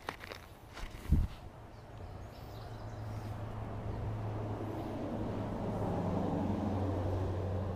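Road traffic rumbling over a concrete highway bridge: a vehicle's low, steady hum grows gradually louder over several seconds as it approaches. A single knock sounds about a second in.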